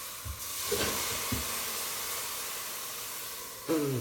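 Water steaming and hissing steadily in a hot frying pan under grilled cheese sandwiches, added to steam the cheese until it melts. A few soft low knocks come in the first second or so, and a brief falling voice-like sound comes just before the end.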